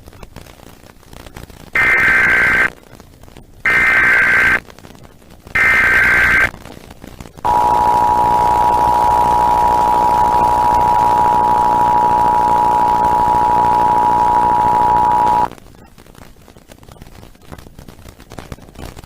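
Emergency Alert System broadcast tones. First come three short bursts of SAME header data, a warbling digital squeal, each just under a second long and about two seconds apart. Then the EAS two-tone attention signal (853 and 960 Hz) sounds steadily for about eight seconds, the alert tone that opens a Required Monthly Test.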